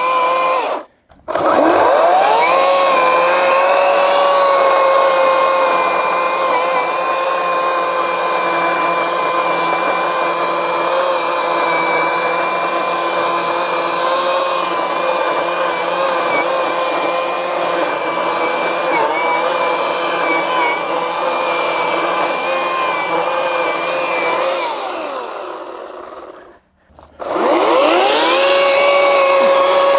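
Ryobi 40V brushless battery chainsaw cutting into a stump: a steady high electric-motor whine with the chain running. It cuts out about a second in and again near the end, each time spinning back up with a rising whine.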